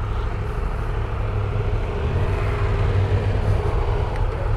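Triumph Tiger 1200 Rally motorcycle's three-cylinder engine running steadily on the move, with wind and tyre noise.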